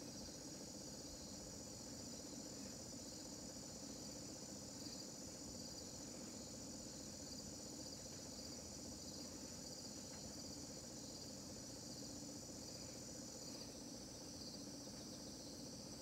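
LG Inverter V ductless mini-split outdoor unit running steadily, its compressor and fan giving a low even hum. Over it, insects chirp in a high band that pulses about twice a second, and a thin high whine stops a couple of seconds before the end.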